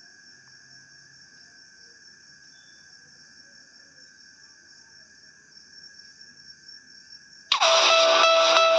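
A faint steady high-pitched tone in the background. About seven and a half seconds in, a name ringtone starts suddenly and loudly: a distorted electric-guitar tune stepping up and down in pitch.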